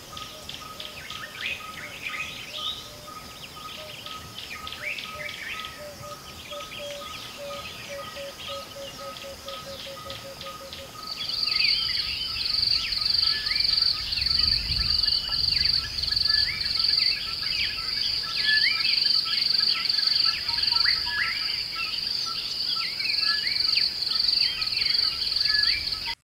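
Many birds chirping and calling, over a steady, evenly pulsed high note. About eleven seconds in, a louder, higher tone pulsing rapidly joins and keeps on.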